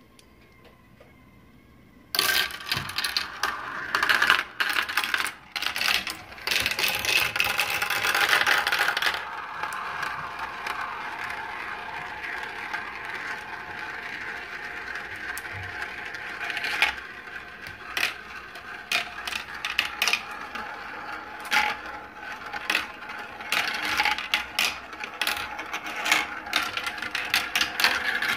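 Glass marbles rolling and clattering through a plastic marble run, starting about two seconds in: a steady rolling rattle as they run through the tracks and circle in a plastic funnel, with many sharp clicks as they knock against the pieces and each other.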